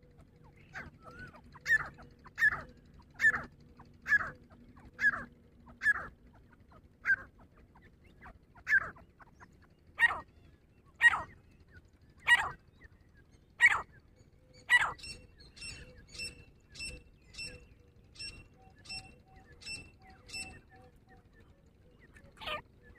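Grey francolin calling: a run of loud, repeated calls about a second apart for some fifteen seconds. Then comes a quicker series of fainter, higher notes and one more loud call near the end.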